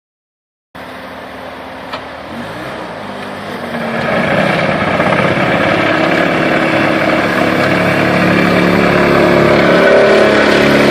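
Skid steer engine running, throttled up from about two to four seconds in and then running louder and steadily, with a single sharp click just before the rise.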